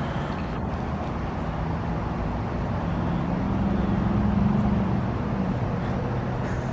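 2023 RunTru heat pump outdoor unit running in defrost mode: a steady compressor hum under a rushing hiss, the hum swelling slightly midway.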